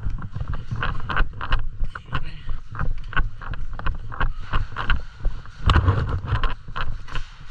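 Sounds of an indoor airsoft game: irregular sharp clicks and cracks, several a second, over a low rumble on the microphone.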